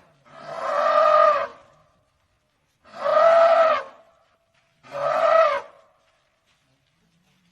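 African elephant giving three loud, pitched calls, each about a second long with a short gap between them. The pitch of each call rises slightly and then falls.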